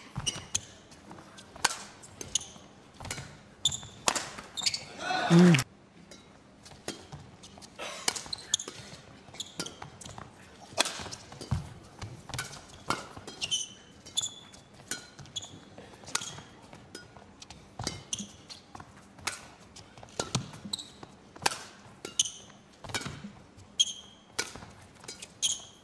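Badminton rally: repeated sharp racket strikes on the shuttlecock and short high shoe squeaks on the court mat. About five seconds in comes a loud shout that falls in pitch.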